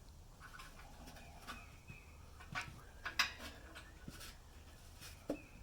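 Scattered light clicks and knocks from parts being handled, with a sharper knock about three seconds in.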